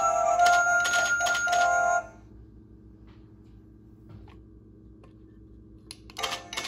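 Hallmark Happy Tappers figurines playing a Christmas tune with rapid mechanical tap-dance clicking; the song stops abruptly about two seconds in. After a few seconds of low hum and faint clicks, a click near the end starts the next tune and tapping.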